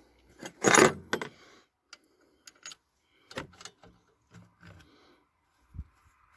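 Metal parts and hand tools clinking and rattling during engine-bay work: a loud clatter about a second in, then scattered small clicks and knocks, and a low thump near the end.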